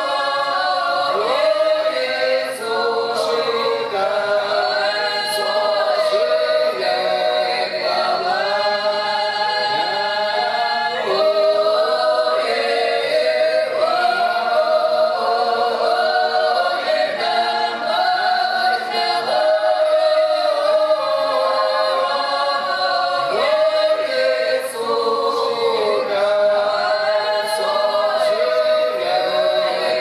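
Russian folk ensemble singing a cappella in several voice parts, mostly women's, a drawn-out lyrical village song (protyazhnaya) from the Belgorod region, with long held notes that slide between pitches.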